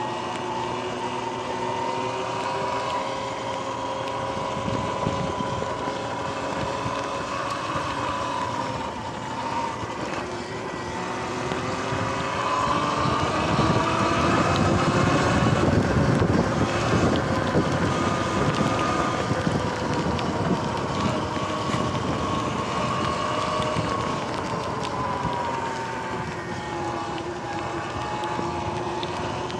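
Sur-Ron X electric dirt bike's motor and drivetrain whining while riding, the whine rising in pitch as the bike speeds up partway through and falling again near the end. Wind rushes on the microphone under it, loudest in the middle while the bike is at speed.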